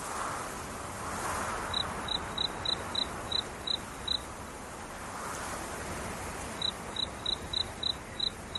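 Cricket chirping: two runs of short, high chirps at one pitch, about three a second, the first a little over a second in and the second starting past the middle, over a steady hiss.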